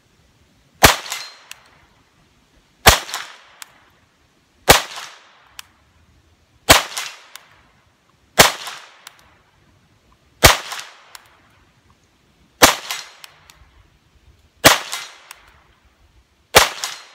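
Nine shots from a CZ P-09 pistol fitted with a .22 LR conversion kit, fired slowly and evenly about two seconds apart, each a sharp crack with a short fading echo.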